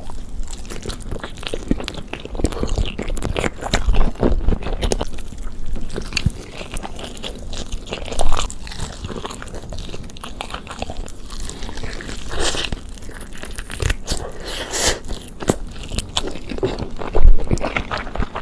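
A person biting and chewing chicken close to the microphone, with irregular crunching and wet chewing sounds; the loudest bites come about eight seconds in and near the end.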